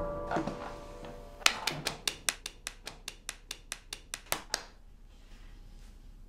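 Upright piano's last notes dying away, followed by a quick run of about sixteen light, sharp clicks, some five a second, for around three seconds.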